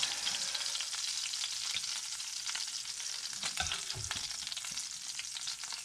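Hot oil sizzling and crackling steadily in a cast iron skillet after the trout has been fried, with a metal spatula scraping through the pan and a couple of knocks about three and a half to four seconds in.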